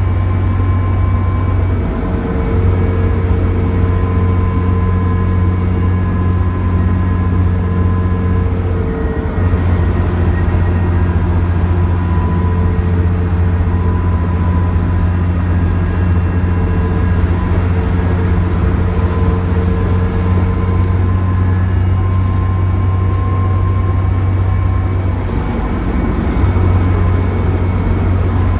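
Cummins ISC inline-six diesel of a New Flyer D40LF transit bus running steadily at freeway cruising speed, heard from inside the cabin as a loud low drone with road noise, easing off briefly a few times.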